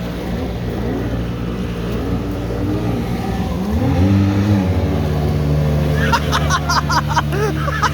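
Jet ski engine running on the water, revving up and dropping back about four seconds in, then holding a steady, higher note. Voices come in over it near the end.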